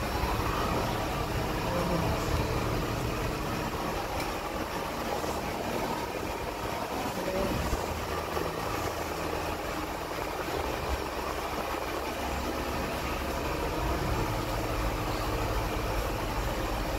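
A steady low mechanical hum over a constant noisy background.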